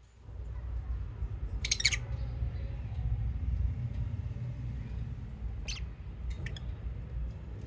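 Lovebirds chirping: a short burst of rapid chattering chirps about two seconds in, then a few single short chirps about six seconds in. A low steady rumble runs under them and is the loudest sound.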